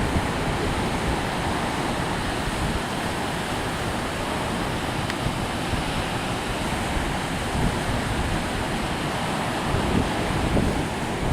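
Steady rushing of surf and wind, with wind buffeting the microphone.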